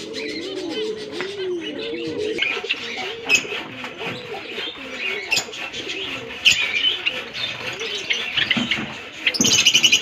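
A flock of small aviary finches chirping and twittering, over a run of low, repeated dove coos in the first few seconds. About nine seconds in there is a short burst of dense, rapid chirping.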